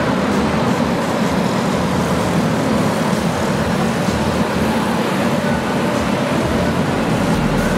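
A pack of racing go-kart engines running hard together as the karts race past, a steady, loud drone with no breaks.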